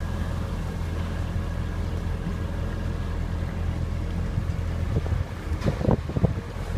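Small boat's motor running steadily at cruising speed, a low drone with water and wind noise. Near the end, wind gusts buffet the microphone for about a second.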